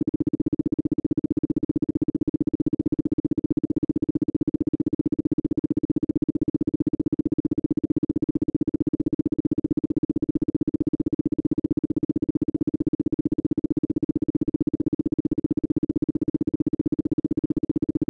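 Isochronic tone for brainwave entrainment: a single steady tone of low-middle pitch switching sharply on and off in a fast, perfectly even pulse, many times a second.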